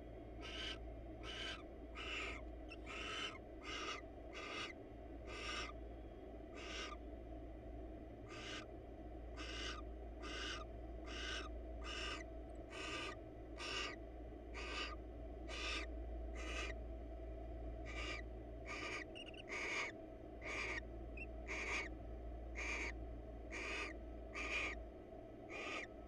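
Barn owl giving an even series of short hissing snore calls, about three every two seconds, over a steady low hum.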